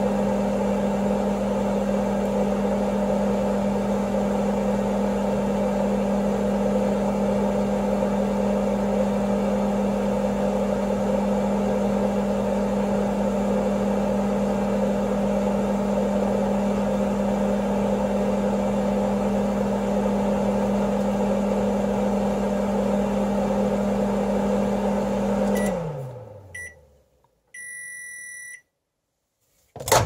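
Microwave oven running with a steady hum while it heats. Near the end it clicks off and the hum winds down, then gives one long beep to signal that the cooking time is over. A sharp clack right at the end is the door latch being released.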